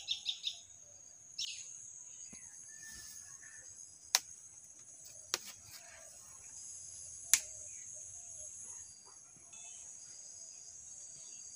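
Steady high-pitched insect drone, with a few bird chirps in the first two seconds and three sharp clicks near the middle.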